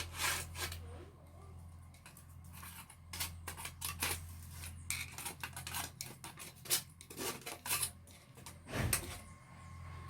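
Old tape being peeled off a window screen: irregular crackling rips and sharp ticks, with a longer rasp a little before the end.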